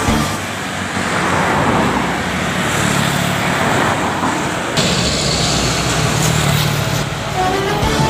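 Road traffic passing close by: motorcycles and other vehicles with engine and tyre noise. The sound changes abruptly about five seconds in, after which a steady low engine drone runs on.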